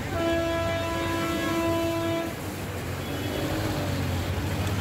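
A vehicle horn sounds one steady, held note for about two seconds, over the low hum of a running engine.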